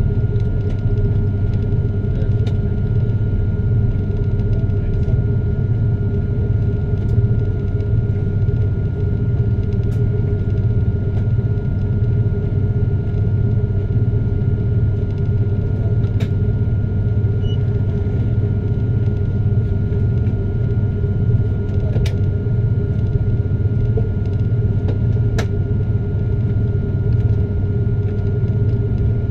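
Airliner cabin noise during taxi: a steady low rumble from the engines at taxi power and the cabin air, with a thin steady whine above it and a few faint ticks.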